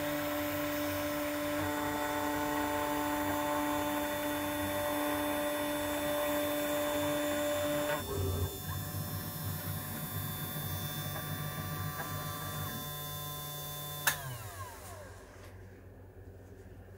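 Small CNC machine's motor running with a steady pitched hum; the tone changes about halfway through. Near the end a sharp click, then the motor winds down in falling pitch and the sound drops to a faint hum.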